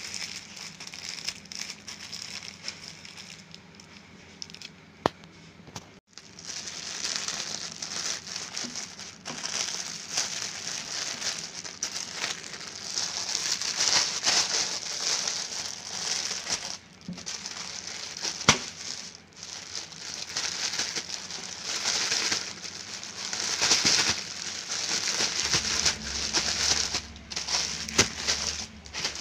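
Plastic courier mailer and plastic wrapping crinkling as hands tear and pull them open. It is quieter for the first few seconds, then comes in uneven stretches with short pauses and a couple of sharp clicks.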